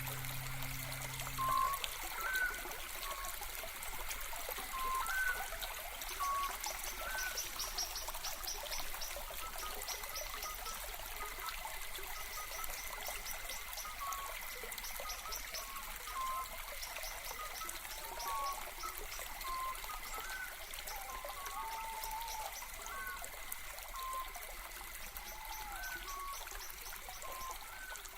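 Water trickling and gurgling, with short irregular bubbly plinks, over a faint steady hiss.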